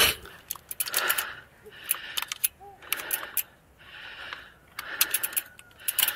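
Mountain bike chain clinking and rattling in short, irregular clicks as it is handled and worked back onto the chainring after dropping off.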